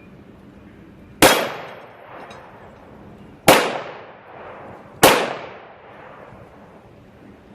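Three single shots from a CZ P10-C 9mm pistol fired at a slow, steady pace, about a second in, then roughly two and a bit seconds later, then a second and a half after that, each shot trailing off briefly.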